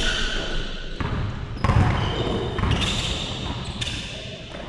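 A basketball bouncing on an indoor gym floor during play: a few irregular thuds that echo around the large hall.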